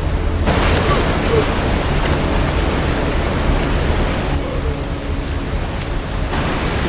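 Rushing whitewater of river rapids below a waterfall, a steady, loud wash of water noise that swells about half a second in, eases a little past the middle and rises again near the end.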